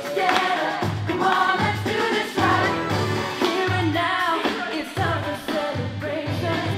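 Pop song with singing over a steady bass beat.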